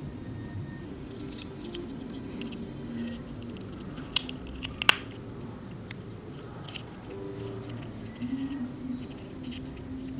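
Small plastic clicks and taps as injection-moulded model kit engine parts are handled and fitted together. There is a sharp click about four seconds in and a louder one about a second later, over a soft low background sound.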